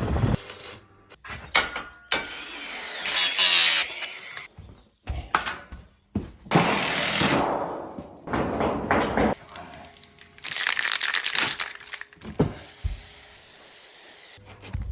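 A fast series of workshop sounds cut one after another: bursts of power tools, with knocks and cracks between them.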